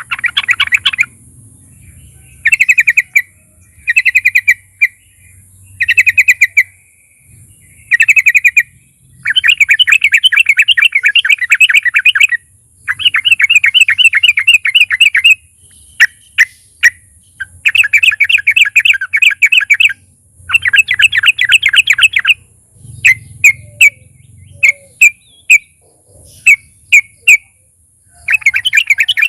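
Yellow-vented bulbul (trucukan) singing in full voice: bouts of fast, bubbling chattering notes, short at first, then longer runs of two to three seconds, ending in a string of single separate notes. A faint steady hiss lies under the song.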